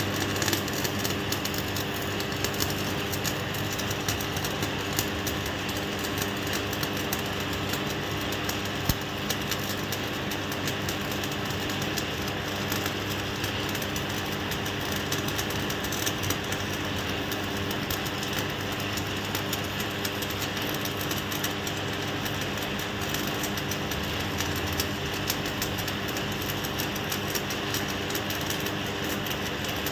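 Electric arc welding on a butterfly valve body: the arc crackles continuously and evenly, with a steady low hum underneath.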